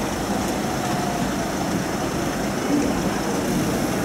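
Steady running noise of a tram rolling slowly along a city street, heard from on board: an even low rumble with no sharp knocks.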